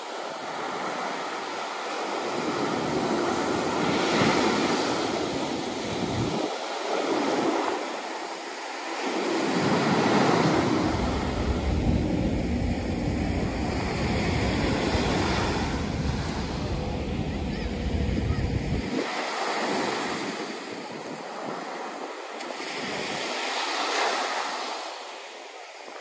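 Small waves breaking and washing up a sandy beach, the surf rising and falling every few seconds. Wind buffets the microphone with a low rumble through the middle stretch.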